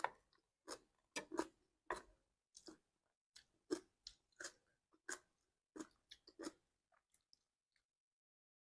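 Close-up chewing of crunchy food, a string of crisp crunches about twice a second that thin out and stop about seven seconds in.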